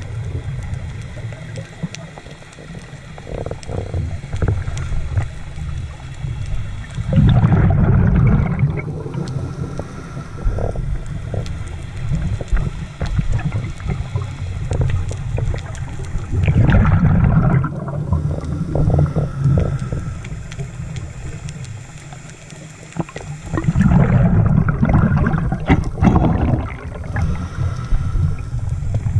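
Underwater sound heard through a camera housing: a scuba diver's exhaled bubbles burbling from the regulator in three long bursts about eight seconds apart, over a muffled low rumble.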